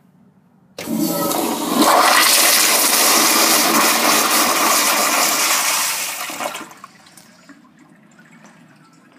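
Crane toilet flushing: a loud rush of water starts suddenly about a second in, runs for about six seconds and then dies away quickly, leaving a faint trickle.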